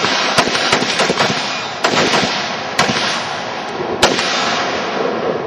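Several AR-15-style carbines firing at once on a firing line: a rapid string of overlapping shots that starts together and goes on without a break, with a few louder cracks standing out, the sharpest about four seconds in.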